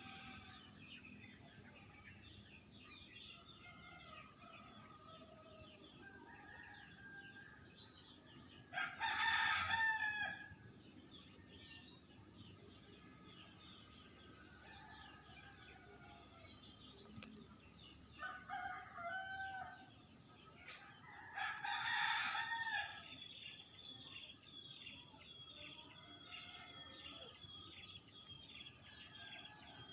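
A rooster crowing twice, about nine seconds in and again about twenty-two seconds in, each crow lasting over a second. Underneath is a steady high insect drone with scattered faint bird chirps.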